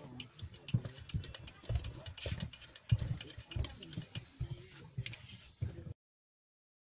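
Teaspoon stirring tea in a glass set in a metal glass holder, clinking against the glass in quick, irregular ticks. The clinking cuts off suddenly about six seconds in.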